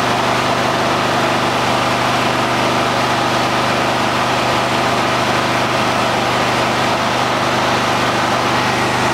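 Portable petrol generator engine running at a steady speed, together with a soft-serve ice cream machine running its wash cycle. A constant, unchanging hum.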